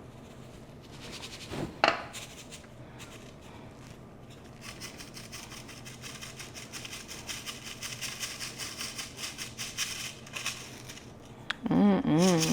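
Flour being sifted through a metal flour sifter: a sharp knock about two seconds in, then a long run of quick, even, scratchy strokes as clumpy, slightly damp flour is worked through the mesh.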